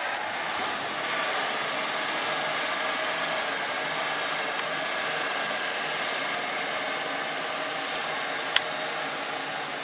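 Agrimaster Shark R480 reach-arm flail mower running steadily as it cuts long grass, the tractor engine running under it. One sharp click near the end.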